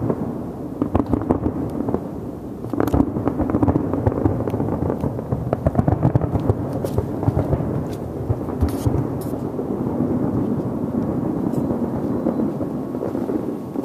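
Fireworks going off: many sharp pops and bangs, some in quick runs, over a continuous noisy background.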